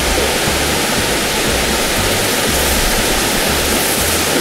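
Steady rushing noise like running water, under background music with a slow, repeating bass line.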